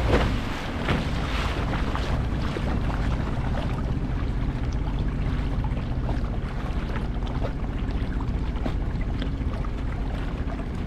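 Wind buffeting the microphone and water splashing along a small kayak's hull as the kayak slows down, with no clear outboard engine note.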